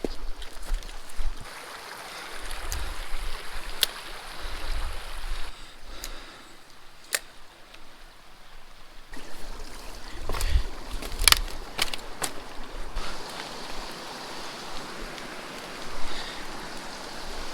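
Small mountain stream rushing steadily, with a few sharp clicks and some low thumps scattered through it.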